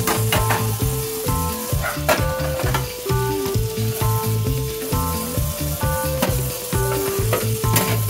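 Background music with a bass line and short melody notes, over the steady hiss of a kitchen faucet's water running onto a metal oven tray in a sink.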